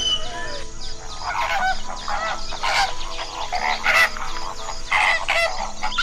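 Waved albatrosses calling: a busy run of short, overlapping calls starting about a second in, with a couple of sharp clacks among them.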